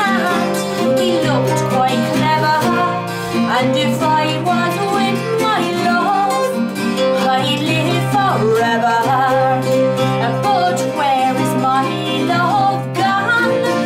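A woman singing a folk song, accompanied by two acoustic guitars.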